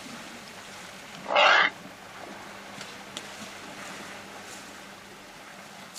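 African elephant trumpeting once, a short loud blast about a second in, over a faint steady background hiss.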